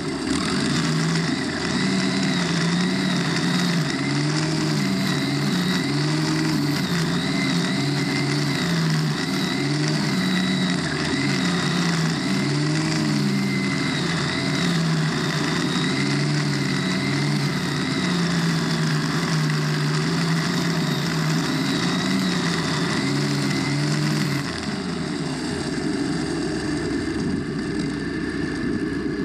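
Stihl FS90R string trimmer's 4-MIX four-stroke engine running under load as its spinning nylon line cuts through grass, with a steady high whine and an engine note that rises and falls as the line bites into the grass.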